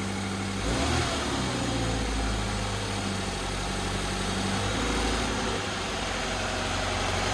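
Scion FR-S's 2.0-litre flat-four boxer engine idling on its first start after a new short block, running smooth. The revs rise briefly about a second in, then settle back to a steady idle.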